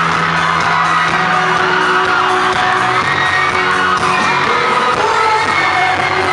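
A crowd of students screaming and cheering, many high voices overlapping, over loud music.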